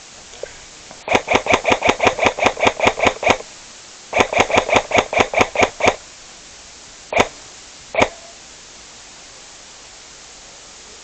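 Airsoft gun firing two rapid strings of shots at about six a second, a short pause between them, then two single shots.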